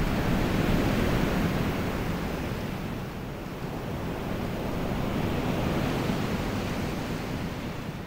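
Rushing river water: a steady rush of whitewater rapids.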